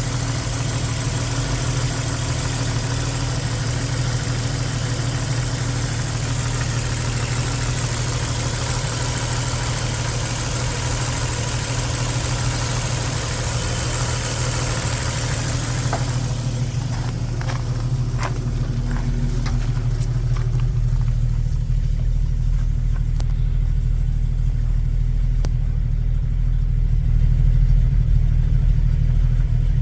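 1994 Jeep Wrangler YJ engine idling steadily, the engine of a Jeep that stalls and then won't restart. About halfway through, a steady high hiss cuts off, and a few clicks follow.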